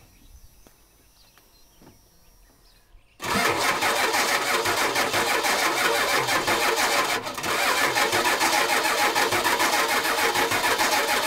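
1992 Ford F-350's starter cranking the engine hard on a cold start, kicking in suddenly about three seconds in with an even, rapid pulse, briefly easing off about seven seconds in and then cranking on; the engine does not catch.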